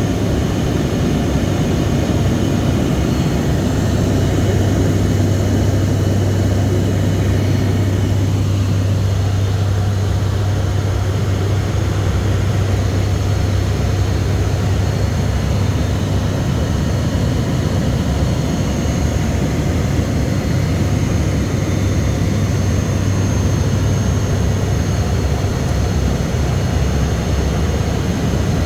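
ATR 72's twin turboprop engines and propellers in flight, heard from the cockpit as a steady drone with a deep propeller hum. The hum eases a little about eight seconds in.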